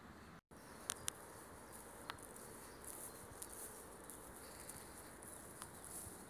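Faint outdoor ambience of insects chirping in long summer grass: a steady high fluttering hum, with a few soft clicks scattered through it.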